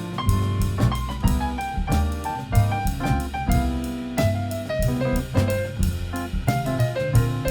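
Instrumental jazz from a small band: a low bass line and a drum kit with cymbals under melodic lines that change note every fraction of a second.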